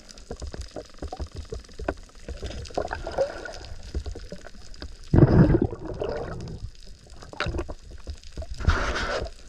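Water sloshing and bubbling around a camera in a spearfishing dive, with many small knocks. There is a louder rush of water about five seconds in and another near the end.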